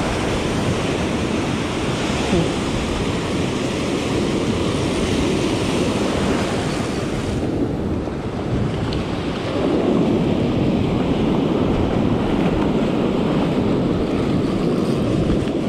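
Ocean surf breaking and washing up the beach, with wind buffeting the microphone. About halfway through, the high hiss of the wash drops away, and a lower rumble of surf comes up soon after.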